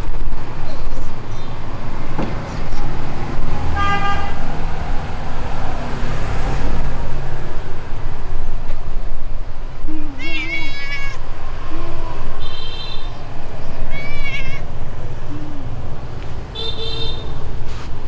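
Several short meows, some high and wavering, traded between a street cat and a person imitating its meow, over a steady low traffic rumble.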